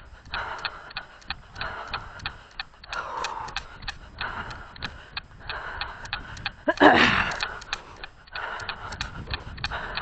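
Running footfalls, about three steps a second, picked up as even ticks by a carried microphone, with the runner's heavy rhythmic breathing. There is one louder breath or rush of air about seven seconds in.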